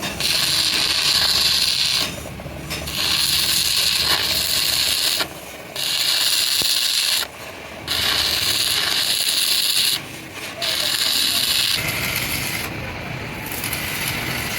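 A mechanical tool working in five rasping bursts of one to two seconds each with short pauses between, then running quieter and steadier near the end.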